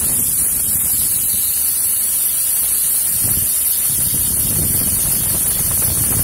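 Compressed-air siphon spray gun hissing steadily as it blasts a mixture of hydraulic oil and diesel onto cotton module truck conveyor chains, with a low rumble underneath.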